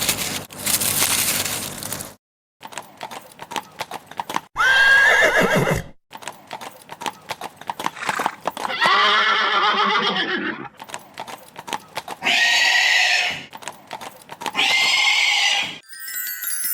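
Horse neighing and whinnying four times, with hooves clip-clopping between the calls. The longest whinny, in the middle, wavers up and down.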